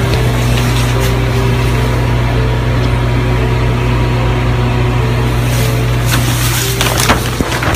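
Water-extraction machinery running: a loud, steady drone with a low hum over a broad rushing noise, joined by sharp crackles in the last couple of seconds.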